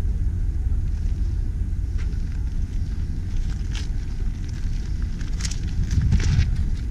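Wind buffeting the microphone as a low, uneven rumble, with a few short crunches of footsteps on gravel in the second half.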